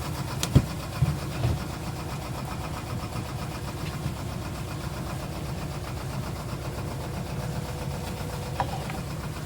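Boat engine running steadily at low speed with an even low throb, as the sailboat motors along. A few short knocks sound in the first second or two.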